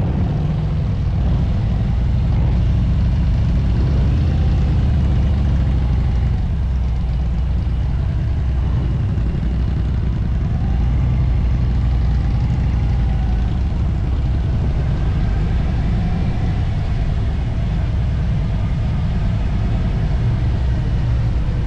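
Harley-Davidson touring motorcycle's V-twin engine running steadily on the road, with heavy low rumble from wind on the microphone. Its pitch rises and falls a little around the middle.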